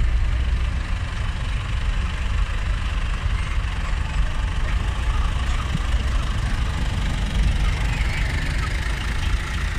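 John Deere 2140 tractor's diesel engine running steadily at low revs as it pulls a passenger trailer slowly past, a steady low rumble.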